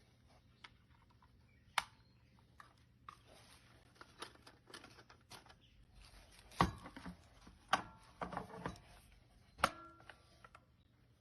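Scattered sharp clicks and light knocks, the loudest a little past halfway and again near the end, over a faint steady hum.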